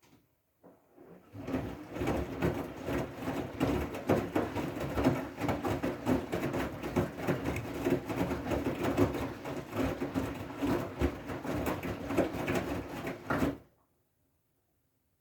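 Siemens i-Dos front-loading washing machine on its wool/delicate programme, the drum turning and the wet load tumbling in a dense, clattery churn. It starts about a second in and cuts off abruptly near the end.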